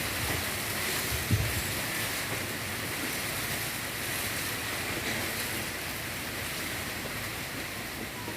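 Strong wind blowing, a steady rushing noise, with a single dull thump about a second in.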